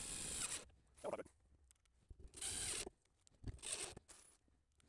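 Cordless drill running in several short bursts, driving screws into a wooden spacer strip.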